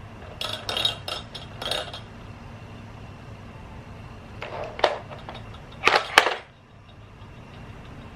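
Hard plastic cat toy clattering and clinking in two short bursts of quick knocks, the second and louder one about six seconds in, over a low steady hum.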